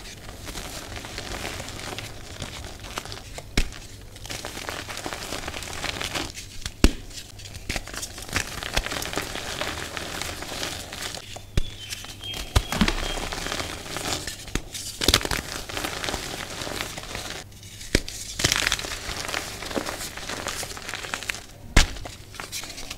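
Bare hands crushing and crumbling dyed green reformed gym chalk: a continuous dry, crunchy crumble of powder and chunks, with a few sharp cracks as firmer lumps break.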